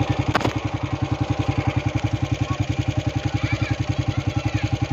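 Motorcycle engine idling with a steady, rapid, even putter. A single sharp click sounds about half a second in.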